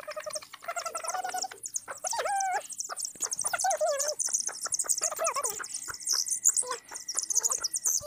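A brood of chicks peeping constantly, high-pitched, with a hen giving a few wavering clucking calls about two, four and five seconds in.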